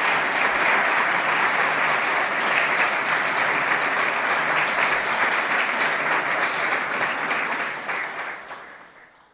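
Audience applauding steadily, then fading out over the last second or so.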